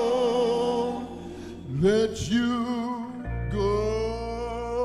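A man singing into a microphone over music, holding long notes with vibrato; twice he swoops up sharply into a new held note, about two and three and a half seconds in.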